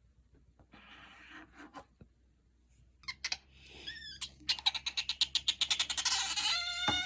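Asian small-clawed otter squeaking: a string of rapid, high-pitched chirps, about ten a second, that starts about three seconds in, grows louder and runs into a continuous shrill squeal near the end.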